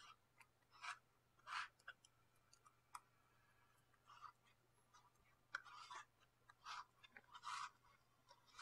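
Faint, irregular short scraping strokes with a few small clicks, from hand tools working lacquer on a pen.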